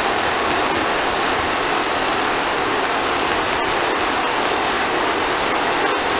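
Ground fountain firework burning, its spark jet giving a steady hiss, with a couple of faint crackles in the second half.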